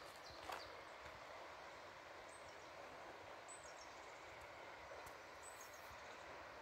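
Faint outdoor canyon ambience, a steady low hiss, with a single footstep on gravel about half a second in and three brief, high, faint bird chirps spread through the rest.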